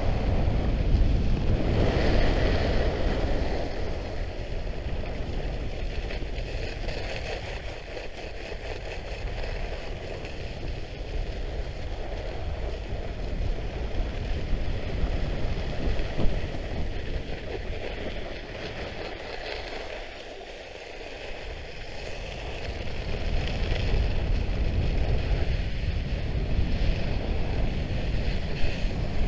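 Wind rushing over the microphone during a fast downhill run, over the steady hiss and scrape of Trikke Skki blades carving on groomed snow. It eases briefly about two-thirds of the way through, then picks up again.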